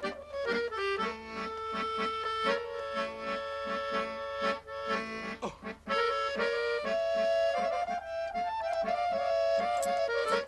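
Accordion playing a lively folk dance tune over a pulsing bass accompaniment, the melody climbing higher in the last few seconds.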